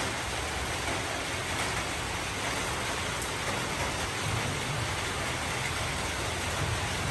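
Steady, even hiss with a low rumble underneath, holding unchanged throughout.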